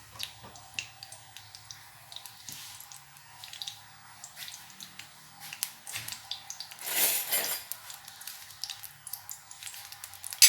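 Coconut oil heating in a pan on the stove, with scattered faint ticks and crackles. A louder hiss comes about seven seconds in, and a sharp click near the end.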